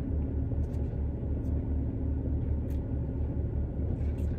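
Car idling with the air conditioning running, heard from inside the cabin: a steady low rumble with an uneven throb.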